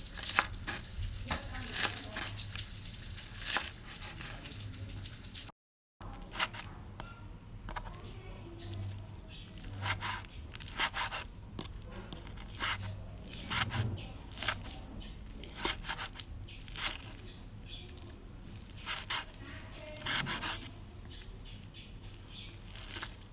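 Chef's knife cutting on a wooden cutting board: irregular sharp taps of the blade on the board, roughly one or two a second, first through green onions and then, after a brief silence about six seconds in, through diced pork belly.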